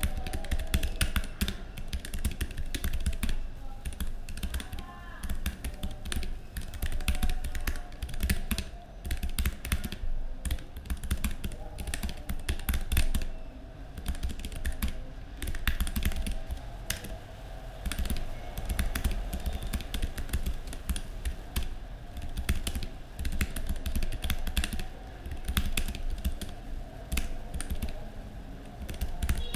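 Typing on a Keychron K3 V2 low-profile mechanical keyboard: a continuous, irregular run of quick key clicks, several a second.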